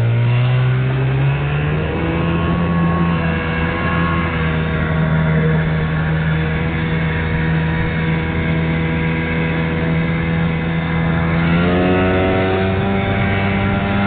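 Johnson outboard motor pushing a small inflatable boat along at speed. Its pitch climbs over the first couple of seconds, holds steady, then rises again with more throttle about twelve seconds in.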